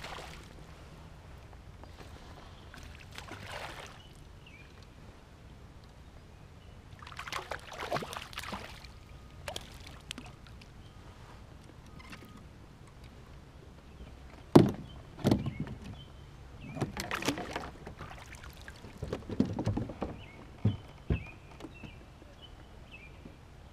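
A hooked fish splashing at the surface as it is fought and landed beside a kayak, with water sloshing and several sharp knocks on the kayak hull, the loudest about fifteen seconds in.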